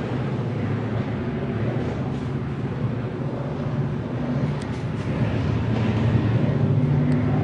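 Motorcycle engine idling steadily, getting slightly louder in the last couple of seconds.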